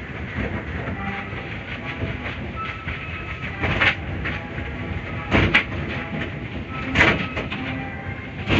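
Cloth brush strips of an automatic car wash slapping and sweeping over the car's windshield and body amid water spray, heard from inside the car. A steady wash of noise with many small knocks, and heavier thumps about four, five and a half, and seven seconds in.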